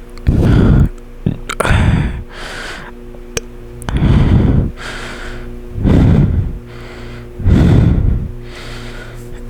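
Heavy breathing right up against the microphone after chugging soda: five loud, breathy rushes a second or two apart, with fainter breaths between them, over a steady low hum.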